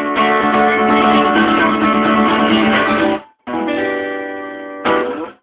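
Guitar strumming chords. One chord is held for about three seconds and cut off, a second chord rings and slowly fades, and a last short strum comes near the end.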